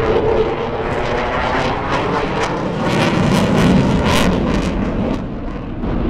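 Eurofighter Typhoon's twin jet engines at full power with afterburners lit as it climbs away overhead: a loud, continuous jet roar with crackling, loudest about three to four seconds in.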